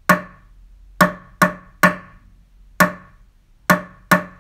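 Hands slapping on bare knees in a rhythm pattern: seven sharp slaps, with a quick run of three about a second in and a quick pair near the end.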